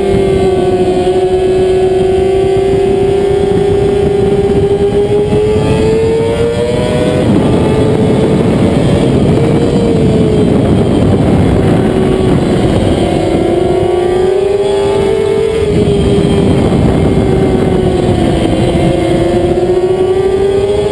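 Race sport bike's engine at high revs, heard from on board, its pitch climbing and dipping with throttle and gear changes, over a heavy rush of wind.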